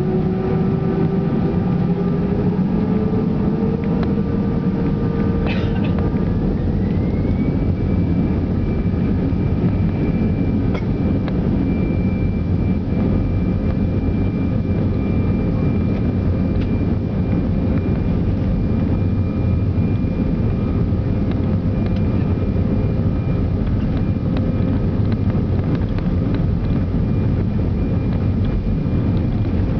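Airliner's jet engines heard from inside the cabin: a loud, steady rumble with a whine that rises in pitch over the first several seconds and then holds steady.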